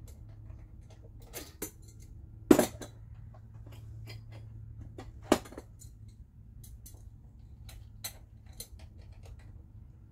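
Scattered clicks and metallic clinks of hands and hand tools working among the hoses and lines of an engine bay. Two louder knocks come about two and a half and five seconds in, over a steady low hum.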